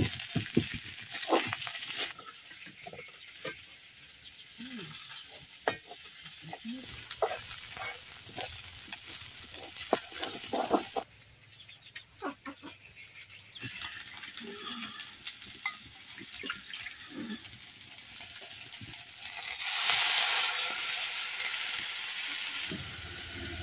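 Chopped onion and onion leaves sizzling in hot oil in an iron wok, with a metal spatula scraping and knocking against the pan as it stirs. Near the end a loud hiss rises as a turmeric-yellow spice liquid is poured into the hot wok.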